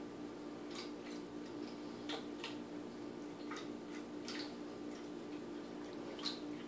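A cat lapping water from a Drinkwell Platinum pet fountain: about six short, irregular wet clicks over the steady low hum of the fountain's pump.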